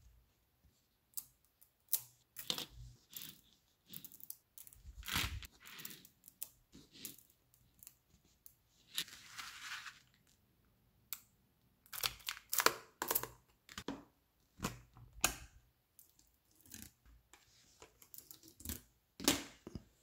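Small neodymium magnetic balls clicking and snapping against each other as they are pressed onto a magnetic-ball sculpture, in scattered clusters of sharp clicks. About nine seconds in there is a rustle lasting about a second as a flat sheet of balls slides across a paper card.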